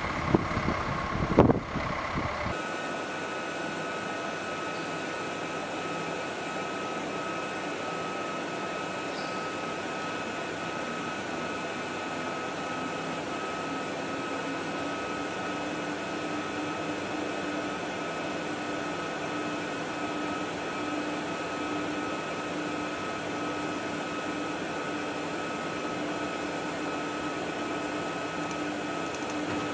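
A couple of sharp knocks and the rumble of heavy yard vehicles for the first two seconds or so. Then a steady mechanical hum, like ventilation fans, fills a large fabrication shop, with a few faint steady tones and a low whine that grows in about fifteen seconds in.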